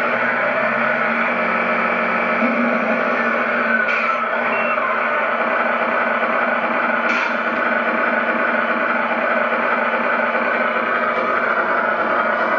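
Radio-controlled model cars' motors running continuously, with a couple of short clicks about four and seven seconds in.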